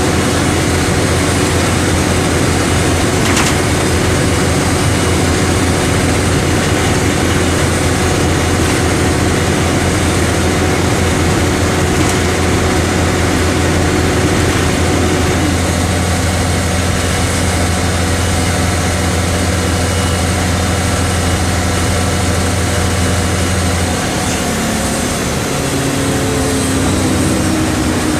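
Mercedes-Benz OM 457 LA turbocharged inline six-cylinder diesel of an O-500MA bus running steadily with a deep, even drone. About halfway through, a higher tone steps down in pitch, and near the end the deep drone drops away while a rising tone comes in.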